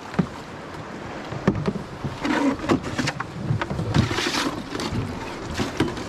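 Canoe paddle strokes and river water splashing around a canoe on lumpy high water, with irregular knocks and a louder splash about four seconds in.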